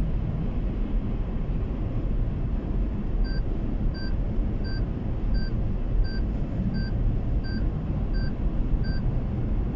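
Steady low road and engine rumble inside a car's cabin at highway speed. From about three seconds in, an electronic beep sounds nine times, roughly once every 0.7 seconds.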